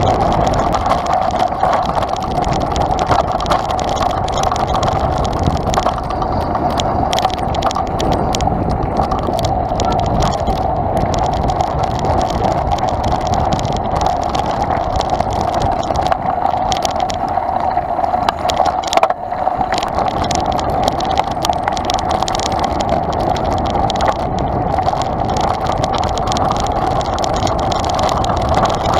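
Mountain bike ride noise picked up by a handlebar-mounted camera rolling over a dirt trail: a steady rumbling drone with frequent knocks and rattles from bumps, and a harder jolt about two-thirds of the way through.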